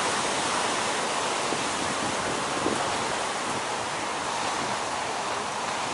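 Big ocean surf breaking and washing in whitewater: a steady, even rush of noise.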